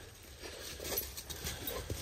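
Dogs' paws scuffling and padding on wood chips as they wrestle and play, a soft irregular patter of taps and rustles.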